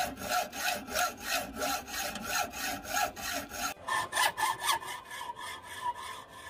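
Hacksaw cutting through a 12 mm threaded metal bar, with steady back-and-forth strokes at about two to three a second. About four seconds in the strokes turn quicker and shorter and take on a metallic ringing tone.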